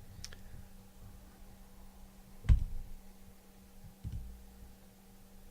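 A few scattered knocks and clicks over a steady low hum: a light click just after the start, a louder knock about two and a half seconds in, and a softer one near four seconds.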